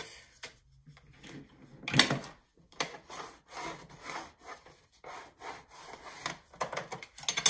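Bone folder scraping along the grooves of a paper scoring board, scoring a sheet of patterned paper in half, in a series of rubbing strokes, the loudest about two seconds in and another near the end.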